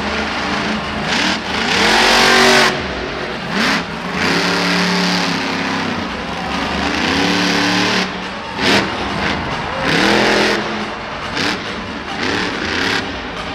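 Monster truck's supercharged V8 revving hard and falling back again and again as the truck is driven around a dirt arena floor. There are about four big throttle bursts, the loudest about two seconds in.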